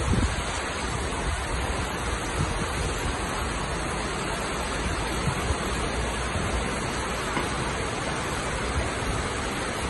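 Heavy rain falling in a steady hiss, with a few low thumps.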